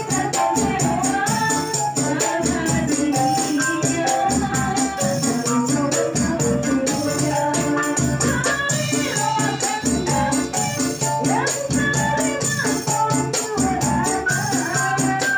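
Women's qasidah group singing an Islamic sholawat together into microphones, with a jingled tambourine shaken and struck to a steady beat and an electronic keyboard accompanying.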